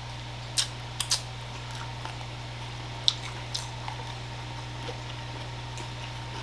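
Eating sounds: a few short wet clicks and smacks of the mouth while chewing, scattered over several seconds, over a steady low hum.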